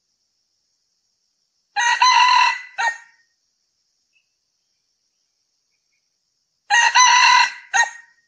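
Male red junglefowl crowing twice, about five seconds apart. Each crow is a short harsh phrase that ends in a clipped final note, played as a lure call.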